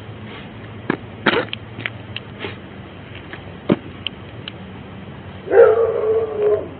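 A dog barks once near the end, a drawn-out bark that falls at first and then holds steady. A few faint knocks and clicks come before it.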